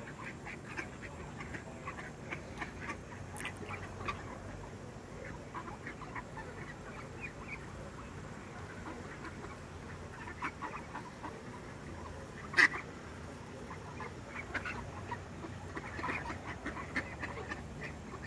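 A flock of mallards giving many short, scattered quacks and low calls. One sharp click about two-thirds of the way through stands out as the loudest sound.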